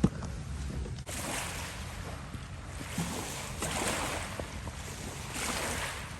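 Small lake waves washing in on the shore, swelling and fading about every two seconds, with some wind on the microphone.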